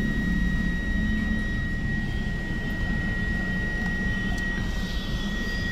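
Steady low hum inside a car cabin, with a thin high-pitched whine over it that fades out about four and a half seconds in.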